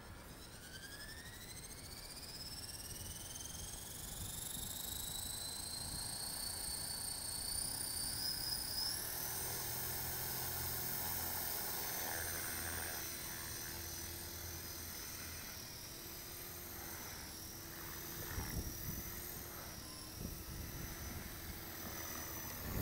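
Electric RC helicopter spooling up: its electric motor's whine rises steadily in pitch over the first several seconds and then holds. A lower steady hum and beat from the rotor join in as the head comes up to speed and the helicopter lifts off.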